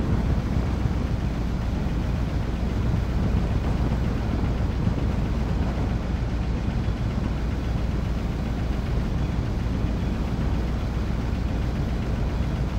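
Steady low rumble of a car driving, with engine and road noise and no change in pitch.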